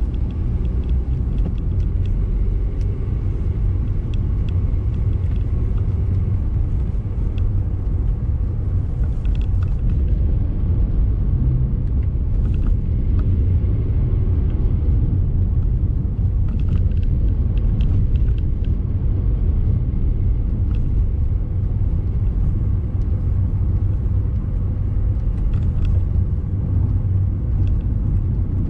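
Steady low rumble of a car's engine and tyres on the road, heard from inside the moving car, with a few faint ticks scattered through it.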